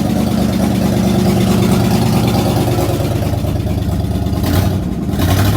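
Holden Commodore's 253 V8 engine running at idle after being brought back to life from 25 years of sitting. A short burst of hissing comes in about four and a half seconds in.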